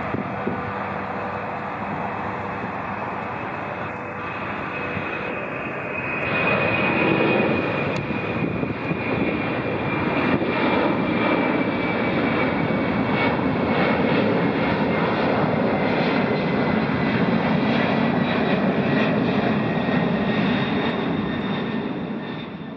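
Boeing 767-300 freighter's twin turbofan engines at takeoff power as it climbs away: a steady jet rumble that grows louder about six seconds in, with a high fan whine that slowly falls in pitch.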